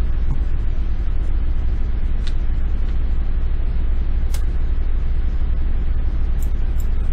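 Steady low background rumble, with two faint sharp clicks about two and four seconds in.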